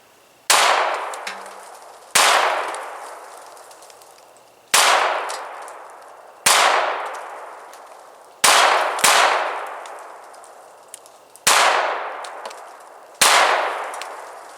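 Browning Buck Mark .22 LR semi-automatic pistol fired eight times, slowly one shot at a time with uneven gaps, two of them close together near the middle; each sharp crack is followed by a long fading tail.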